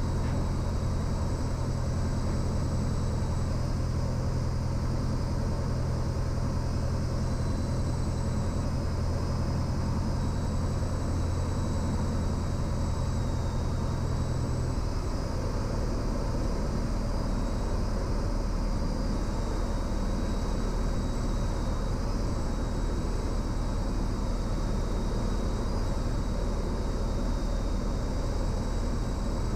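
Cessna 172's engine and propeller droning steadily in the cabin on final approach. About halfway through, the engine note drops lower as power comes back for landing.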